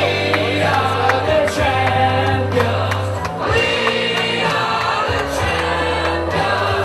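Music with several voices singing together over a steady bass line.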